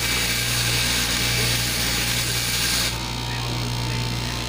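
Electric straight-knife cloth cutting machine running with a steady motor hum, its blade cutting into a stack of layered fabric. A loud hiss rides on the hum and drops away about three seconds in, leaving the hum.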